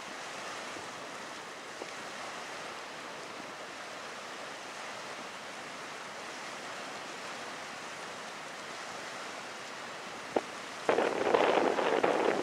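Steady outdoor wind hiss, then near the end a sudden loud, ragged gust of wind buffeting the microphone.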